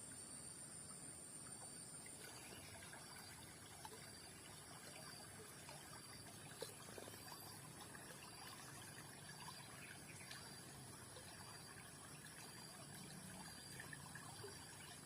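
Faint, steady trickle of water flowing in a small ditch, with a thin steady high-pitched whine over it and a few faint ticks.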